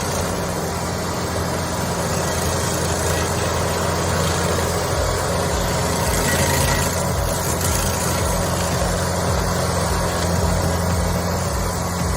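Carlton 7015 TRX tracked stump grinder with its engine running steadily, and a low throb joining in about five seconds in.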